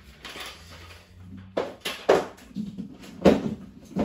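A low steady hum for about the first second and a half, then a series of sharp knocks and thuds, about five, as things are handled and set down.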